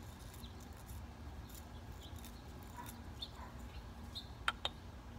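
Light wind rumble on the microphone, with faint scattered clicks and two sharp ticks close together near the end as a wooden kendama and its ball are handled.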